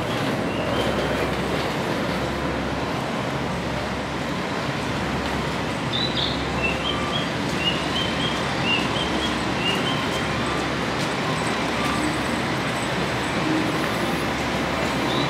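A train running in the station: a steady rail rumble with short high-pitched squeaks dotted through it.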